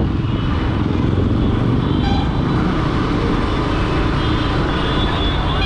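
Motorcycle engine running and wind noise while riding through city traffic, heard from the rider's seat. A short vehicle horn toot comes about two seconds in, and fainter horn tones follow near the end.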